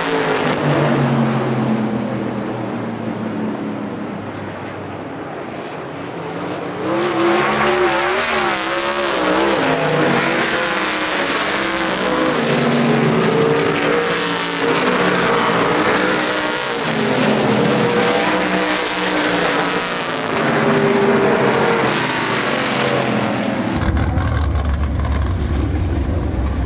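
Several race car engines passing on an oval at full speed, their notes rising and falling as the cars come by and overlapping. Near the end the sound changes to a steady low rumble.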